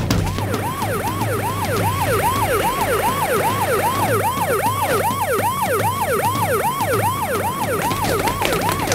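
Police siren sounding in fast, repeating up-and-down sweeps, about three a second, over a steady low hum.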